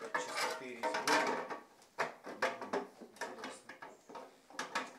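Lathe's change-gear cover being handled and fitted back over the end gears: a string of sharp clicks and clatters, with a person's voice during the first second or so.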